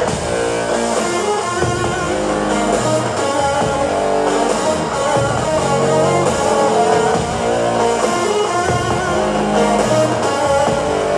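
Pop-rock song played through a boAt Stone 1500 Bluetooth speaker, an instrumental stretch of strummed and plucked guitar over bass, with no singing.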